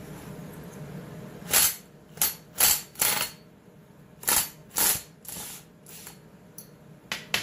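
A run of about eight sharp knocks and clicks at uneven intervals, hand tools and metal parts working on a chainsaw being taken apart, the loudest in the first half. A low steady hum stops about a second and a half in.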